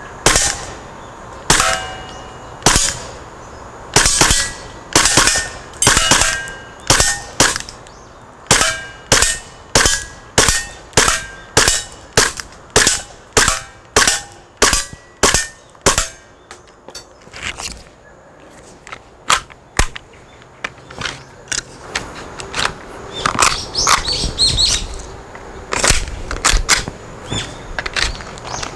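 Tokyo Marui Glock 17 Gen4 gas blowback airsoft pistol firing, each shot a sharp crack. The shots are spread out at first, then come in a quick string of about two a second, then thin out again near the end.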